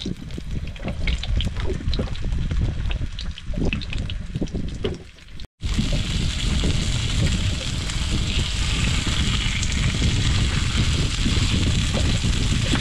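Mackerel fillets sizzling in olive oil in a frying pan, with crackling spits of oil, then a steadier hiss after an abrupt cut about halfway. A low rumble of wind on the microphone runs underneath.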